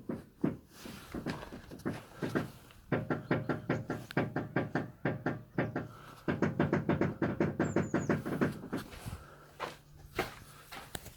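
BMW F11 steering making a strange rapid clicking or knocking, about seven clicks a second, in two runs of two to three seconds each, with a few single knocks before them; a low steady hum comes in near the end.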